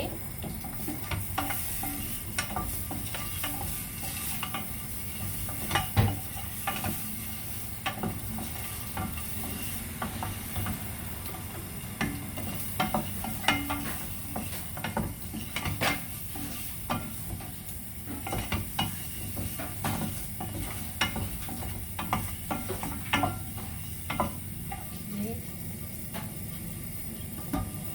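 Sliced eggs frying in a little oil in a frying pan over a low flame: a steady gentle sizzle. A utensil stirs and scrapes against the pan in irregular clicks throughout.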